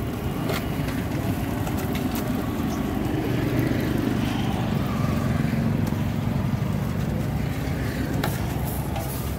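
Steady low roar of a street-food stall's gas burner firing under a large iron tawa, with a few light clinks of steel utensils.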